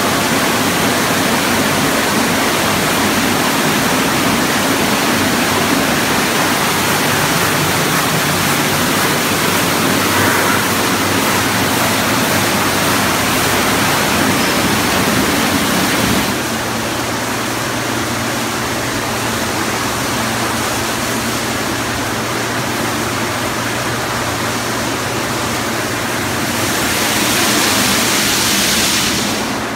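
Automatic rollover car wash running: red rotating brushes scrubbing a small car under steady water spray, a loud, dense rushing noise. About halfway through the low rumble drops away and a steady machine hum is left under the spray. Near the end a louder hiss swells for a few seconds.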